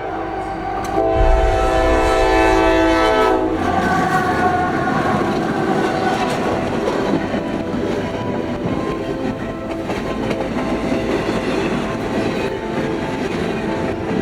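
Train horn sounding a chord of several tones for about three and a half seconds; its pitch drops as it cuts off. Then the train rumbles and clatters steadily past.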